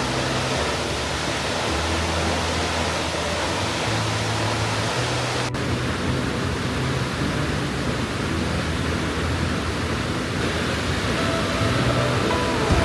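Steady roar of a waterfall's falling water, with soft background music of low held notes underneath.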